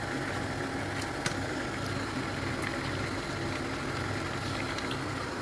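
Steady low rumble of a lit gas stove burner under a pot of simmering soup, with a couple of faint clicks about a second in.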